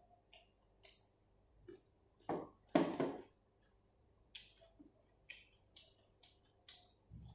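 A person eating with chopsticks from a bowl: close chewing and lip smacks with light clicks. There is a louder, longer sound about two and a half seconds in.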